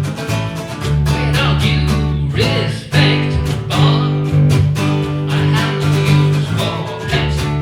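Live band music: guitars strummed in a steady rhythm, with sustained notes over a low bass line.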